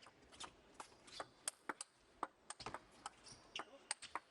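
A quick, irregular run of sharp, light clicks and taps from a table tennis ball striking bats and the table.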